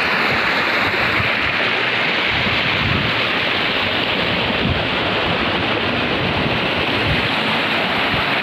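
Steady rush of river water running over rocks and small cascades, with irregular low rumbles of wind on the microphone.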